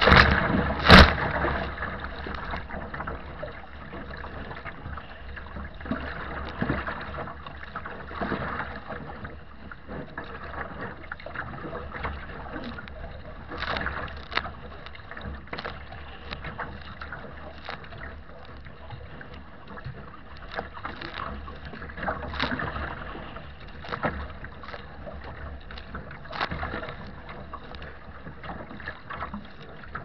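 Waves slapping and splashing against the bow deck of a wooden sea kayak, loudest twice in the first second, with more splashes every few seconds. Strong wind buffets the microphone with a constant low rumble underneath.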